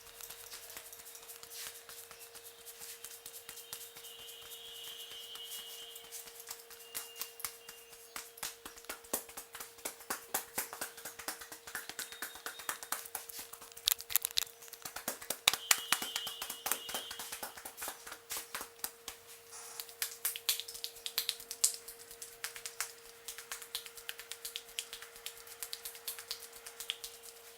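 Hands working a head in a close-miked head massage: a long run of quick, irregular taps, slaps and crinkling rubs of hair and skin, busiest about halfway through. A faint steady hum sits underneath.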